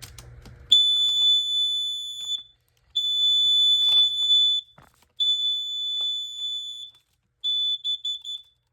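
Kidde combination carbon monoxide and explosive gas alarm sounding on its test button: a loud, high-pitched piercing tone in three long beeps, then a shorter, broken beep near the end.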